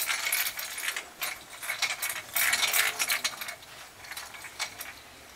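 Toy snail pull-toy rattling with rapid ratchet-like clicks from its wheel mechanism as it is dragged on a string across carpet, dying away about three and a half seconds in.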